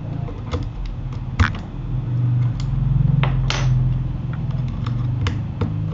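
Keystrokes on a Keychron K8 keyboard fitted with Gateron Aliaz Silent switches, sparse and irregular soft clicks. Under them a low drone swells and fades through the middle and is the loudest sound.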